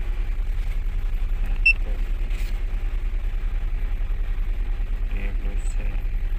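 Honda Jazz engine idling with a steady low, evenly pulsing rumble, and a single short high beep from the Foxwell OBD scanner's keypad about two seconds in.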